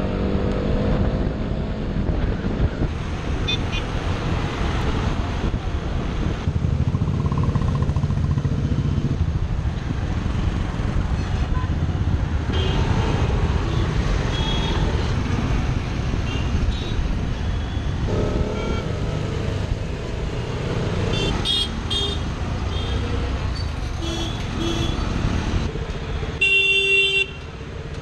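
KTM Duke 200's single-cylinder engine running through city traffic, its pitch rising as it accelerates near the start and again about two-thirds of the way in. Vehicle horns honk several times, the longest and loudest blast near the end.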